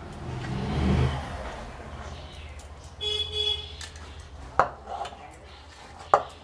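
Thick ground-rice paste being emptied from a bowl into a non-stick kadai, loudest just under a second in. About three seconds in, a short horn toot, followed by a few sharp clicks against the pan.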